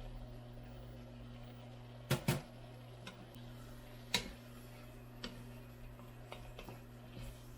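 A few sharp clicks and knocks of kitchen utensils: two close together about two seconds in, a louder single one about four seconds in, then several lighter taps. They sound over a steady low electrical hum.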